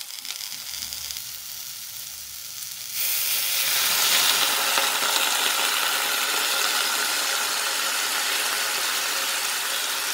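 Chopped beet stems and leaves sizzling in butter in a pan. About three seconds in, the sizzle jumps much louder and stays loud as a splash of water goes into the hot pan and turns to steam.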